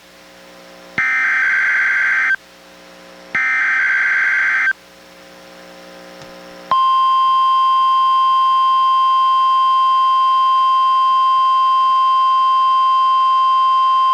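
NOAA Weather Radio SAME digital header: two buzzing data bursts about a second and a half long, a second apart, signalling a Required Weekly Test. After a pause of about two seconds, the steady 1050 Hz NWR warning alarm tone begins and holds. Heard through a weather radio receiver's speaker.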